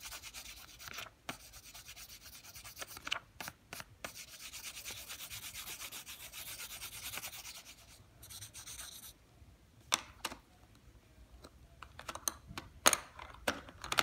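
Coloured pencil scribbling back and forth on paper laid over carpet: a steady scratchy rubbing that stops about nine seconds in, followed by a few scattered light clicks and taps.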